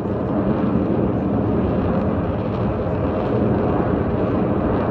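Jet noise from a tight formation of Blue Angels F/A-18 jets flying overhead: a loud, steady rushing sound that builds slightly at the start.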